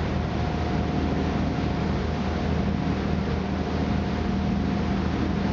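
Boat engine running steadily under way: a low, even drone with a faint steady whine above it, over a constant hiss of water and wind.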